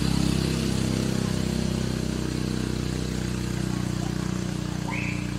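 A motor engine running steadily, loudest at the start and slowly easing off. A brief high chirp comes near the end.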